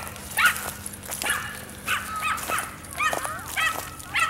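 A dog barking repeatedly, about seven short, high barks spaced roughly half a second to a second apart.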